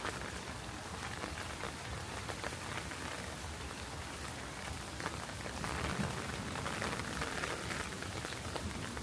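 Steady rain falling, many small drops ticking on surfaces, growing a little louder about halfway through.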